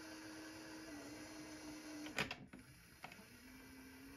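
Tiny electric drive motor of a 1:87 micro RC truck running with a faint steady whine, spinning the rear wheels with the truck upside down, one of them on a 1 mm bearing as a makeshift differential. About two seconds in comes a brief clatter of clicks, then one more click, after which the whine goes on at a slightly lower pitch.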